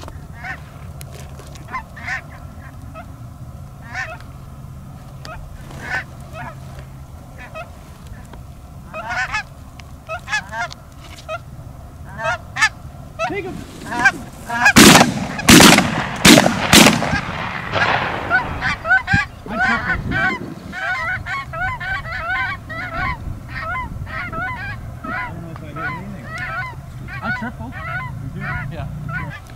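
A large flock of geese honking overhead, many overlapping calls throughout. About fifteen seconds in comes a quick cluster of loud bangs.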